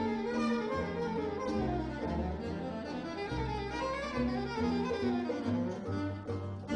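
Small jazz combo playing live: a bass line moving note by note under melodic lines from the other instruments.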